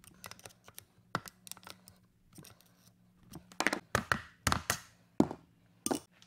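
Steel bearing race on a scooter steering stem being pried upward with a pry bar: small metallic clicks and scrapes, then a run of louder sharp knocks in the second half as the race works free.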